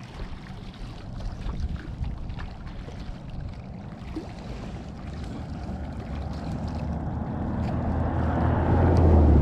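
Low engine rumble that grows steadily louder, loudest near the end, with a few faint handling clicks over it.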